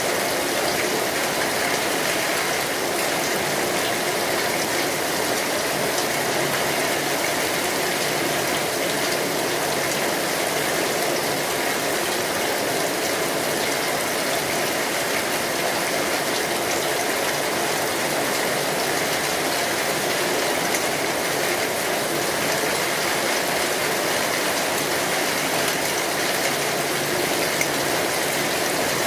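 Steady rain falling on an umbrella: an even hiss with many small drop hits, unchanging throughout.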